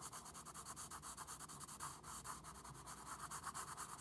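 Graphite pencil scratching on drawing paper in quick, short back-and-forth shading strokes, in a fast, even rhythm of many strokes a second.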